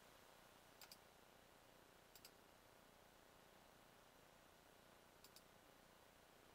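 Three faint computer mouse clicks, each a quick press-and-release pair: about a second in, a little after two seconds and a little after five seconds, over near silence with a faint hiss.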